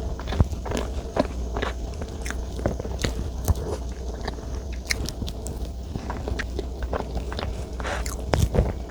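Close-up eating sounds of a person biting into and chewing soft chocolate desserts: irregular wet clicks and smacks, a little louder near the end, over a steady low hum.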